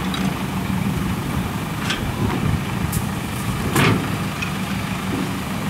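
An engine runs steadily at idle with a low hum, while the ferry's steel loading ramps knock and clank as they are lowered onto the bank. The loudest clank comes about four seconds in.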